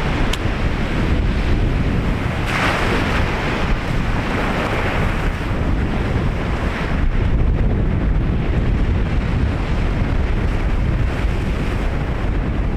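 Ocean surf breaking and washing up the shore in repeated surges, with wind rumbling on the microphone.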